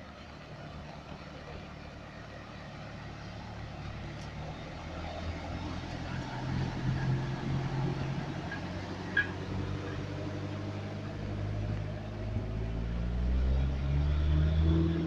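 A car engine running close by, louder in the second half with its pitch rising and falling near the end. A single sharp clink about nine seconds in.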